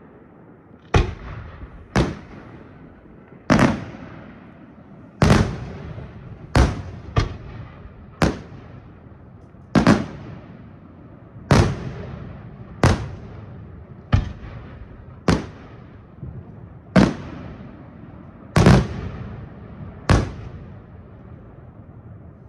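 Fireworks display: loud bangs going off one after another, about one every second or so, each trailing off quickly.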